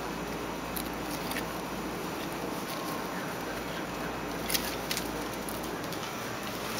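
Beagle puppies tussling in wood-chip mulch: a few light rustles and clicks, the sharpest pair about four and a half to five seconds in, over a steady background hiss.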